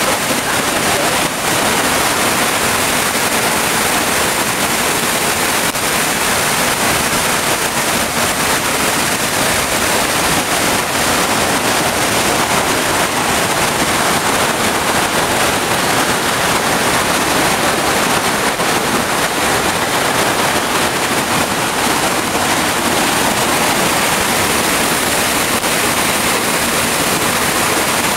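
Waterfall pouring onto the rocks at its base, heard up close: a loud, steady rush of water that never lets up.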